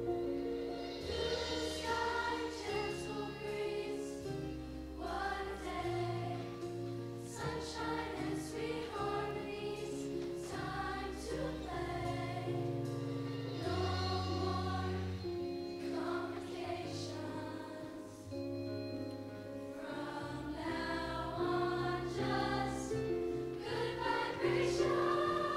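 Middle school show choir singing in many voices with instrumental accompaniment, over a bass line that changes note every second or two.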